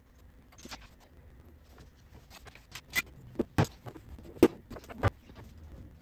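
Hand wrench clicking and clinking on the metal manifold nuts and studs of an Austin-Healey Sprite's engine as the 1/4-inch Whitworth nuts are worked loose. About five sharp, irregular clinks, the loudest a little past the middle.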